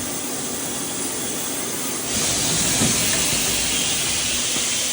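DMG Mori AA-1 CNC lathe cell running with a steady machine hiss that grows louder and brighter about two seconds in, with a light knock shortly after.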